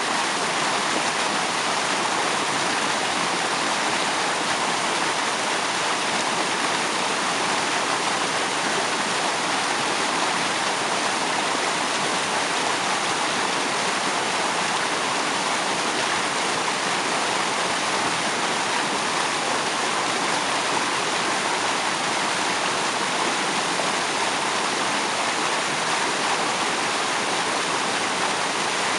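Waterfall spray: water falling and splashing in a steady, even rush.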